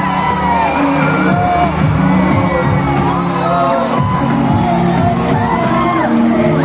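Live pop song played loud over a concert sound system, with singing over a steady low backing and a crowd whooping.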